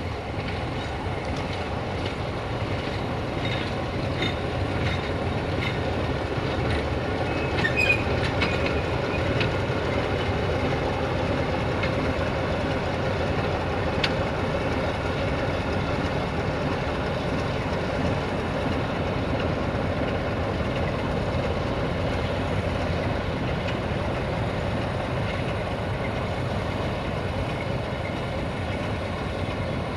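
A diesel train moving along the track with a steady rumble, and a run of sharp clicks and a short squeal in the first ten seconds or so.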